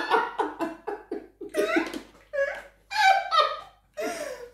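People laughing. A quick run of short laughs trails off into a few separate voiced laughs and sounds, with short pauses between them.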